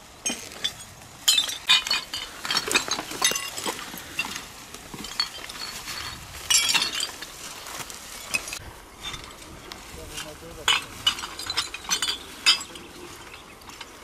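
Litter being gathered into plastic rubbish bags: glass bottles and other rubbish clinking against each other in irregular sharp knocks.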